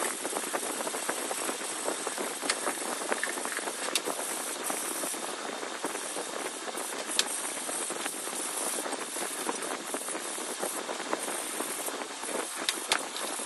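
Paint being sprayed onto a helmet shell: a steady hiss that brightens and eases in repeated short passes, with a few light clicks.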